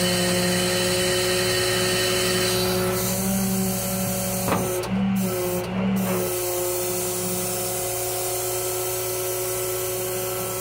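Hydraulic wheel lift of a Ram 5500 rollback tow truck folding up and retracting under the bed: a steady mechanical whine of the hydraulics with the 6.7 Cummins diesel running. The pitch shifts briefly a few times as the controls are worked, with a sharp click about four and a half seconds in.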